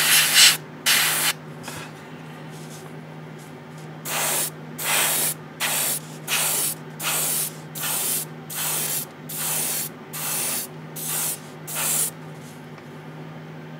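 Gaahleri GHAD-39 airbrush spraying paint at a low pressure of about 15 PSI, in short hissing bursts. There are two quick bursts at the start, then a run of about ten bursts, one every 0.7 seconds or so, from about four seconds in. A steady low hum runs underneath.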